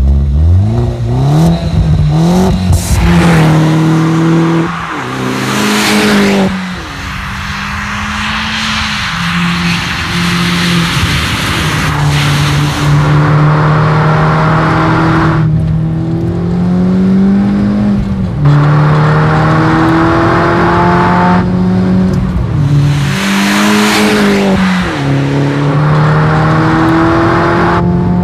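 Mini John Cooper Works R56's turbocharged 1.6-litre four-cylinder running through an Akrapovič exhaust with carbon-fibre tailpipes, driven hard. The engine note climbs through the revs and then drops sharply at each of several upshifts. A few loud rushes of noise come in between.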